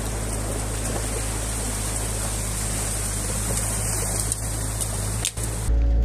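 Excavator's diesel engine running steadily under a constant rush of flowing water. Near the end the engine rumble abruptly jumps louder.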